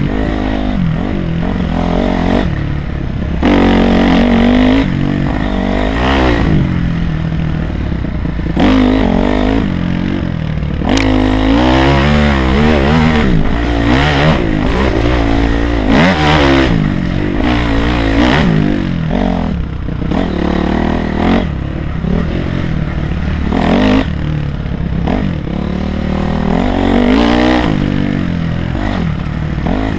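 Honda CRF250R dirt bike's single-cylinder four-stroke engine revving up and down again and again as it is ridden hard along a rough trail, the pitch rising and falling every second or two with the throttle.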